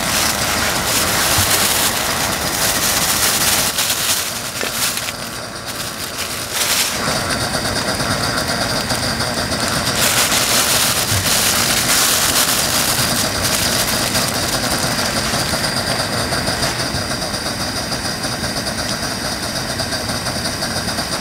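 Liquid boiling hard in a wide shallow griddle pan over a portable gas burner: a dense, continuous bubbling and crackling that dips briefly about five seconds in.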